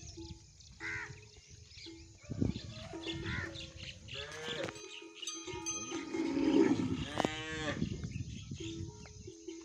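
A herd of humped cattle mooing, several calls in turn, the loudest a long low call about six to seven seconds in.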